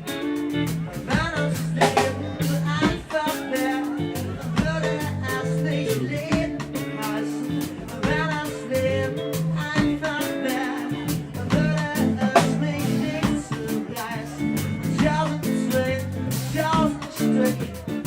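A live band playing a song: guitar, drums and a low stepping bass line under a singing voice.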